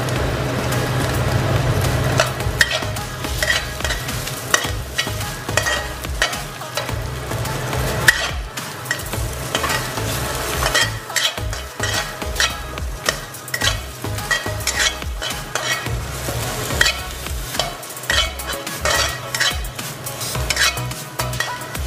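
Metal spatula scraping and clacking against a stainless-steel wok in irregular strokes while sliced shiitake mushrooms, garlic and ginger are stir-fried, with a light sizzle of the frying. A low hum sits under the first two seconds.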